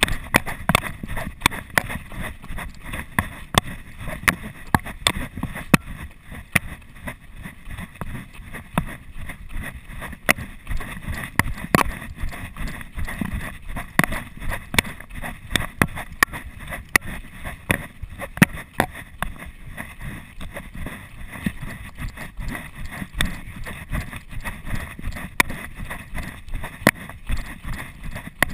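Footsteps on a dirt trail, a steady beat of sharp knocks about two a second, picked up by a chest-mounted GoPro Hero 2.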